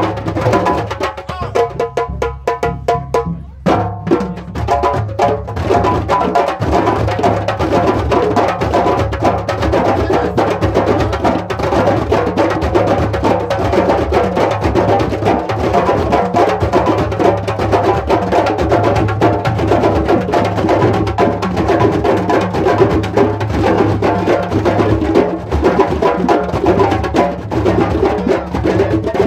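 A group of West African djembe drums played by hand, with dunun bass drums beaten with sticks, playing a fast, steady interlocking rhythm. The playing is thinner for the first few seconds, then the full group comes in densely.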